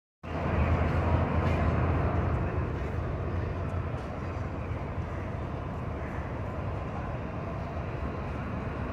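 Railway platform ambience dominated by a steady low engine rumble, a little louder over the first couple of seconds.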